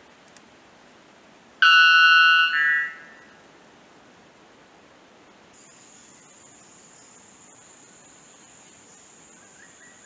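White bellbird giving one very loud call of two ringing notes in quick succession about two seconds in, the second note shorter, over a steady hiss. A thin, steady high tone comes in a little past halfway and holds.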